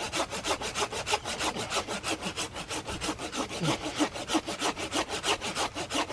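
Folding pruning saw cutting through a green tree branch by hand, a quick, even rasp of about five to six strokes a second; the blade is biting fast and easily.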